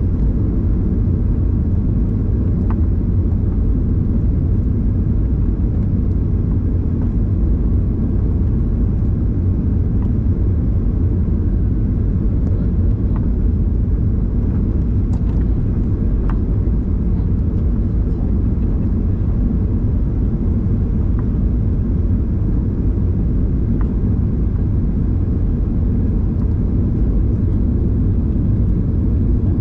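Steady low rumble of a Boeing 737's engines and airflow heard inside the passenger cabin on the approach, with a few faint clicks.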